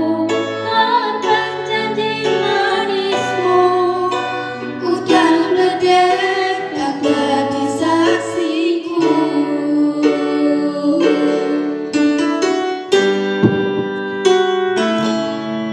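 Song in an acoustic arrangement: a woman singing over keyboard accompaniment, with low bass notes changing every second or so.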